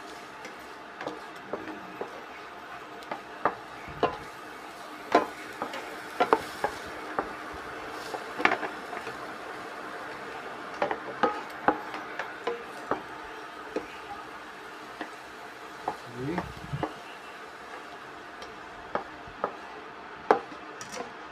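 Wooden spatula stirring chopped onions in melting butter in a nonstick pan, with irregular knocks and scrapes against the pan over a faint sizzle.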